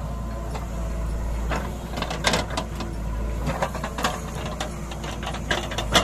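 JCB 3DX backhoe loader's diesel engine running steadily while the backhoe arm works. From about one and a half seconds in comes a run of sharp knocks and clatters, with the loudest just before the end.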